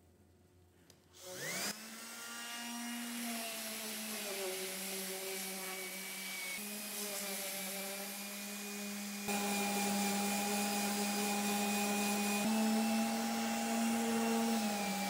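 Random orbital sander running with its hose-connected dust extractor. The motor whine rises as it spins up about a second in, then holds a steady hum with a hiss of sanding. About nine seconds in it abruptly gets louder, and the tone shifts again a few seconds later.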